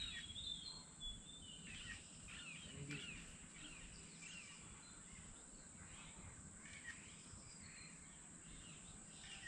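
Faint outdoor birdsong: many short chirps, busiest in the first few seconds and thinning out later, over a steady high-pitched insect hum.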